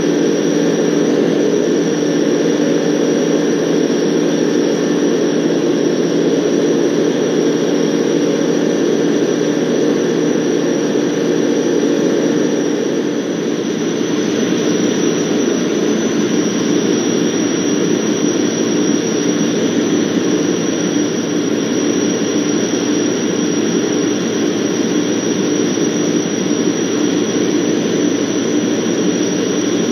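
Van's RV-12's Rotax 912 flat-four engine and propeller running steadily in flight, heard inside the cockpit. About twelve seconds in the engine note changes and becomes slightly quieter.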